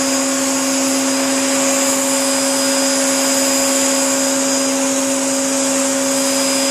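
Vacuum cleaner running steadily: a constant hum with an even rush of air.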